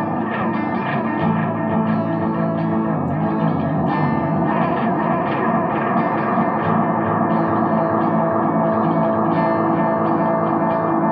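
Electric guitar played through the Boss MS-3 multi-effects switcher's on-board effects: picked notes and chords blur into a thick, sustained, effected tone. The picking is more frequent in the first half, and the notes are held and left ringing later.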